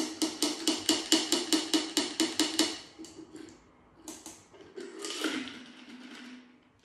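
Glass cocktail jar of shaken ice knocking and clinking against a metal kitchen sieve while the last of the foam is tipped through. About five quick clinks a second for nearly three seconds, then a few looser clinks.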